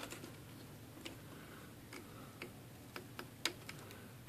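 Faint, irregular small clicks and ticks of a metal tool prying at an IBM Selectric's plastic type ball and its wire retaining clip, the strongest about three and a half seconds in.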